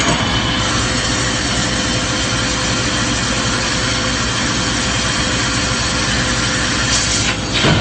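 Tube laser cutting machine running as it cuts through a metal tube: a steady mechanical hum and hiss with a faint steady tone, and a brief louder rush near the end.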